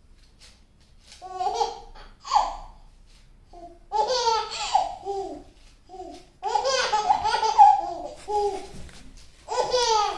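A baby laughing in several bouts of short, high-pitched, breathy bursts, starting about a second in, with brief pauses between bouts.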